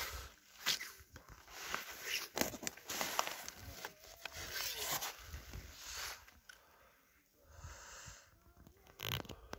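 Rustling and handling noise from a phone held close: sharp crackles of clothing and dry reeds, with heavy breathing and sniffing.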